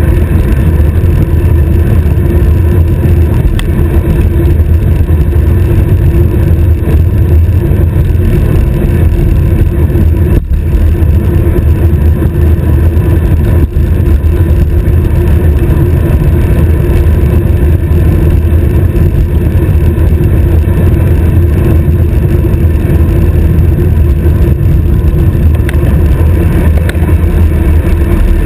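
Wind rushing over a bicycle stem-mounted GoPro's microphone during a high-speed road descent: a loud, steady, deep rumble with no breaks.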